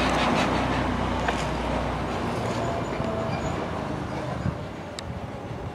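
Fire engine driving past and moving away, its engine and road noise steadily fading.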